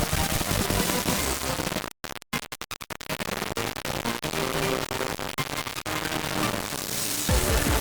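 Harsh, distorted electronic noise from a mock emergency-alert broadcast, with faint held tones buried in it. About two seconds in it breaks into a rapid run of stuttering cut-outs, then goes on as steady noise.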